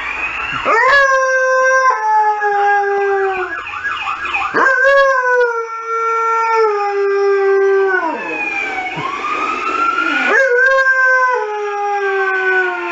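Saluki howling in three long, drawn-out howls. Each holds its pitch, steps down and falls away at the end. The dog is howling along with an emergency-vehicle siren.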